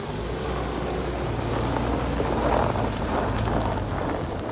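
Car tyres crunching over a freshly laid gravel driveway, with the engine's low hum underneath. The crunch grows louder toward the middle and then eases off.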